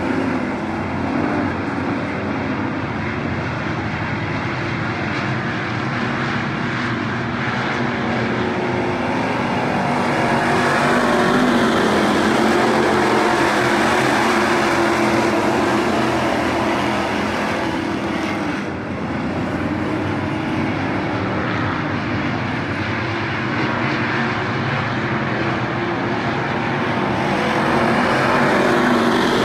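A pack of Midwest Modified dirt-track race cars running at racing speed, their V8 engines blending into one loud, continuous sound. It swells as cars pass close, about ten seconds in and again near the end.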